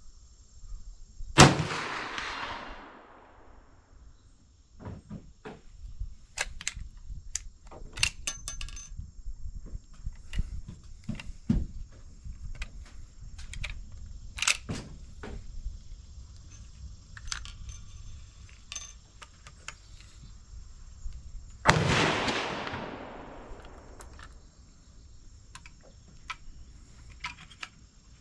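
Two .357 Magnum gunshots, one a little over a second in and one about twenty seconds later, each followed by a long rolling echo that fades over about two seconds. Clicks and knocks of gun handling come in between.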